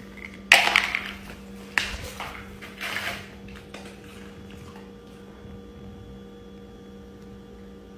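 Water splashing in a small clear plastic bowl on a concrete floor, with the bowl knocking: a few short splashy bursts in the first three seconds, the loudest about half a second in, then only a faint steady hum.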